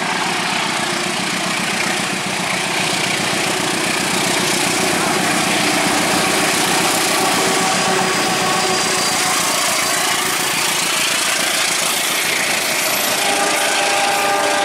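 KAI CC 201 diesel-electric locomotive passing close by with its diesel engine running, then the coaches' wheels rolling over the rails. The sound is loud and steady throughout, with a thin high tone coming in near the end.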